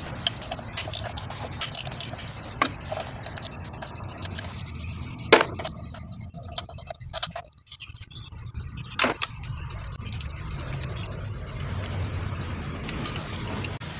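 Metal hand tools working the 12 mm nuts of the cylinder-head bracket: irregular metallic clicks and clinks, with two louder knocks about five and nine seconds in, over a steady low hum.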